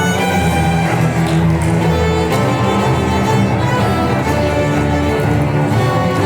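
String ensemble of violins and cellos playing held, layered notes at a steady level.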